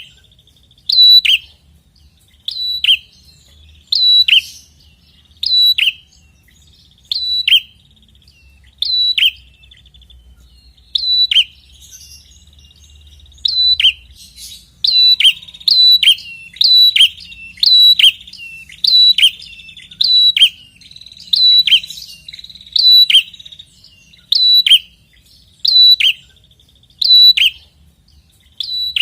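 Prinia (prenjak) singing persistently: a sharp, high note that drops in pitch, repeated about once a second, with faint buzzy trills between some notes and a brief pause about ten seconds in.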